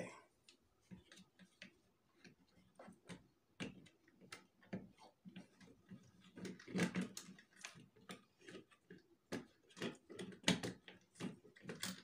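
Light, irregular clicks and taps of a plastic wall socket and its surface-mount box being handled: wires being tucked into the box and the faceplate pressed onto it.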